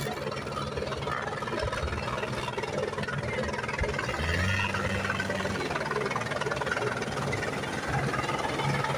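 Helicopter engine and rotor running steadily, with a low drone and a broad wash of noise.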